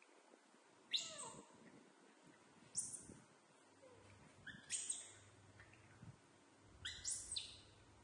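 Baby macaques giving short, high-pitched squeaking chirps, about five of them spaced a second or two apart, each one a quick upward sweep.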